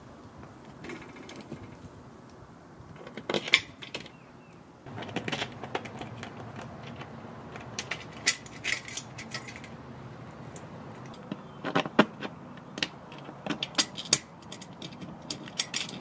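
Metal mounting hardware clinking and rattling against the aluminium base rails of a Smittybilt Gen 2 roof top tent. The sound comes as scattered sharp clicks in uneven clusters.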